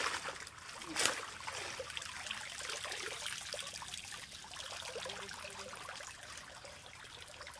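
A cast net with fish in it splashing as it is pulled out of shallow water, with two sharp splashes, one at the start and one about a second in. Then a steady trickle and drip of water running from the raised net.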